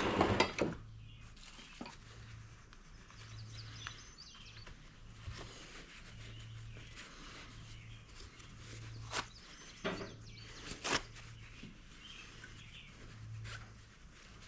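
Hand work on a small engine: a loud clatter of parts at the start and a few sharp clicks about nine to eleven seconds in, over a low hum that swells and fades about once a second.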